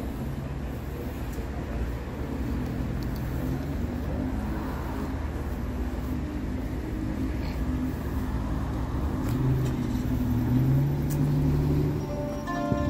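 City street noise with a car engine running close by, a steady low rumble whose note rises briefly about nine to eleven seconds in.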